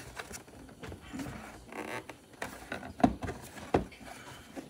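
Light clicks and knocks of motorcycle trim covers and the dash display being fitted back in place, with two sharper knocks about three seconds in.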